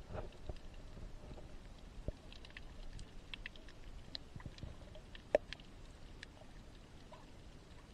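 Underwater sound picked up by a submerged camera: a low rumble of water movement with faint scattered clicks and crackles, and one sharper click about five seconds in.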